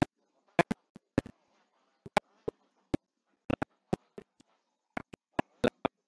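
Irregular sharp clicks, about three a second and often in close pairs, over a faint murmur.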